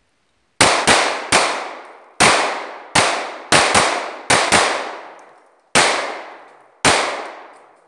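Two handguns firing a string of eleven shots at irregular spacing, from two shooters at once, each shot trailing off in an echo.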